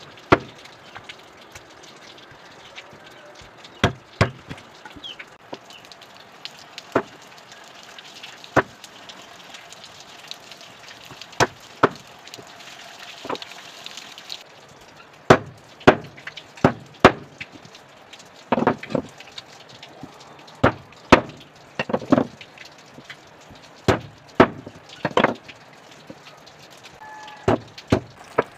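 Large kitchen knife chopping raw chicken into pieces on a wooden chopping board: sharp irregular chops, spaced out at first and coming more often, sometimes two or three in quick succession, in the second half.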